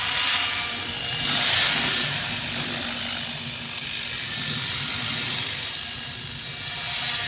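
KDS 700-size electric RC helicopter in flight, its motor and rotor blades whining steadily; it fades as the helicopter moves away and grows louder again near the end as it comes back.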